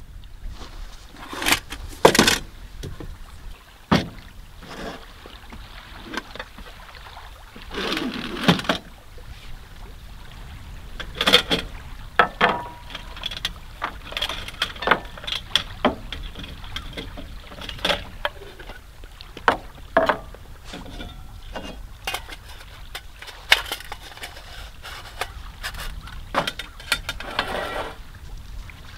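Irregular knocks, clicks and clatter of coffee-making gear being handled, with a low steady rumble underneath.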